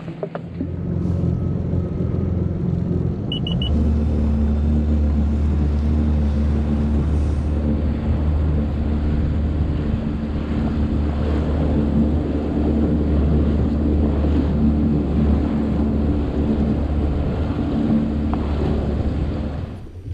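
Yamaha FX HO WaveRunner jet ski engine running under way across the water, with hull and spray noise. It picks up about a second in and steps up to a steady cruising note a few seconds later, with a quick triple beep just before. The engine drops away at the very end as the ski comes off the throttle.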